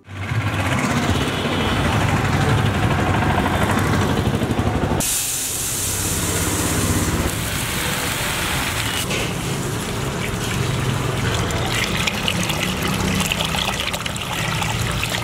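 Raw rice grains pouring into a large steel pot with a dense hiss, then water poured in over the rice with splashing near the end, all over a steady low rumble.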